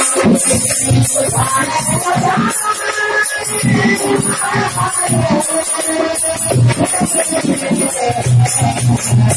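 Bhajan music: a harmonium playing sustained chords and melody over a steady rhythm of drum strokes and jingling hand percussion.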